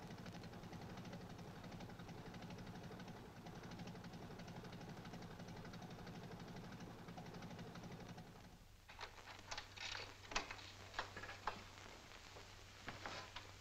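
Small motorboat engine running with a steady low drone, which cuts off about nine seconds in; after that come scattered sharp clicks and knocks.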